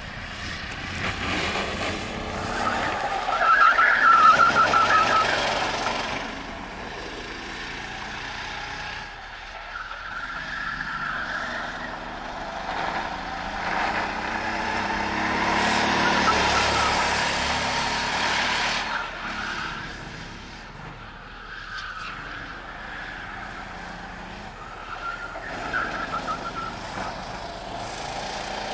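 Sodi RT8 rental karts' four-stroke engines revving and passing on the track, rising and falling in pitch as they go by, loudest about four seconds in and again around sixteen to eighteen seconds. Tyres squeal in the corners, briefly near the start and again near the end.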